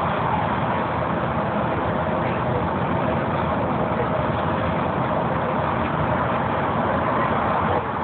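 Steady road and engine noise inside a transit bus travelling at highway speed.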